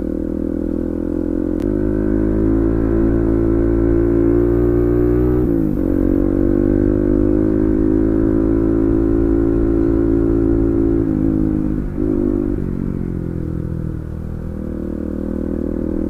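Bajaj Pulsar NS200 single-cylinder engine running loud through an exhaust with its dB killer removed, at a steady, easy cruise. The engine note dips briefly about five and a half seconds in and again around twelve seconds in.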